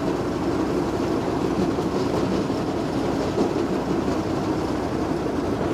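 Heizohack wood chipper on a Heizotruck carrier running at work: a steady, dense mechanical din that holds an even level throughout.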